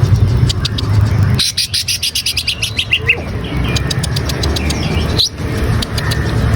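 Green leafbird (cucak ijo) singing a fast, varied song of chirps, clicking notes and whistled notes gliding up and down, over a steady low hum.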